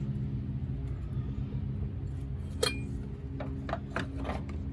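A sharp metallic clink a little past halfway, then a few lighter clinks and knocks as metal tools and parts are handled, over a steady low hum.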